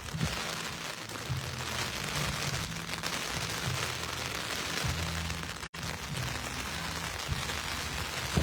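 Steady rain falling, an even hiss, with a low hum underneath; the sound cuts out for an instant a little past halfway.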